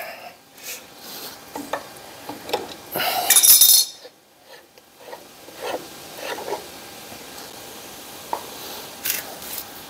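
Wheel puller being unscrewed off the threaded hub of a Ford Model T rear wheel: scattered metallic clinks and scrapes of the tool against the hub, with a louder burst of metal scraping about three seconds in.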